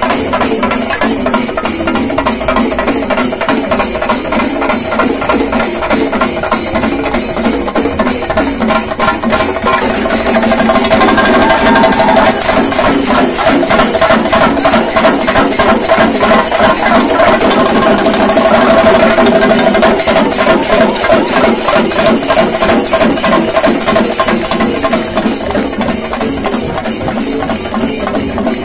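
Shinkarimelam ensemble: many chenda drums beaten with sticks in a fast, dense rhythm, with ilathalam hand cymbals ringing through it. It gets louder about ten seconds in.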